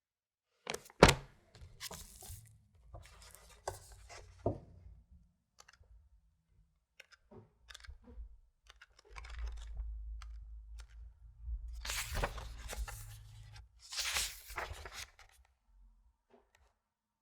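Book pages being turned and handled close up: a sharp snap about a second in, a few crisp page flips, then low rubbing and handling of the book with two loud sweeping page turns near the end.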